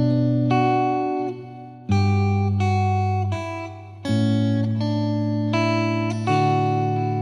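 Background music: a plucked-string melody, a new note every half second to a second, over low held bass notes that change about every two seconds.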